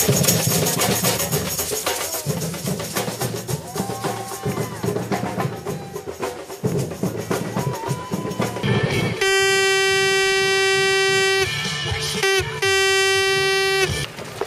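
Samba drum group playing a dense batucada groove of surdo bass drums, snare drums and a shaker. About nine seconds in, a loud horn gives a long steady blast, then a shorter second one.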